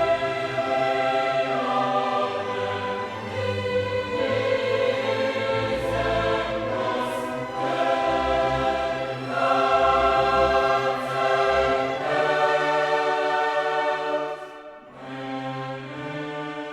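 Background music: a choir singing with orchestral accompaniment, held chords changing every second or two.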